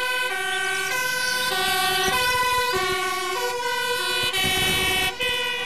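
Fire engine's two-tone siren sounding, switching back and forth between a low and a high note about every half second.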